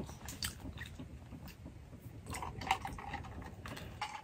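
Soft chewing with small wet clicks and crackles, someone eating roasted sweet potato.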